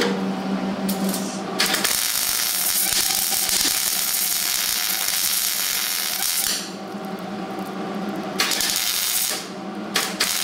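MIG welder arc crackling and hissing as welds are laid on thin sheet steel. One weld lasts about five seconds, starting about two seconds in, and a shorter burst follows near the end. A steady hum runs between the welds.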